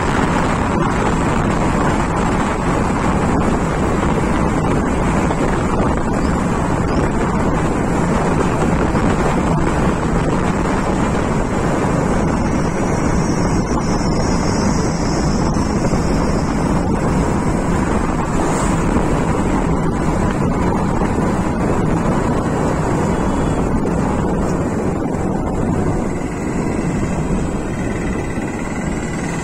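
Steady wind rushing over the microphone of a moving road vehicle, mixed with the running noise of the vehicle and its tyres on the road. A faint high tone joins in near the end.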